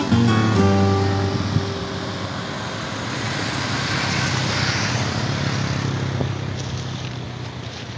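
Motorcycles passing on a road: engine and tyre noise swells about four to five seconds in, then fades away.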